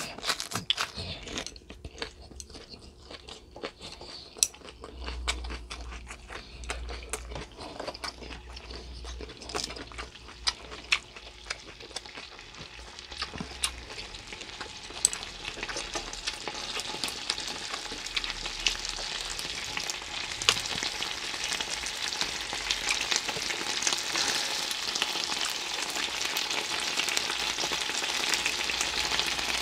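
Spicy stir-fried pork with vegetables sizzling on a griddle pan, the sizzle building steadily louder through the second half, with scattered light clicks from handling the food with chopsticks.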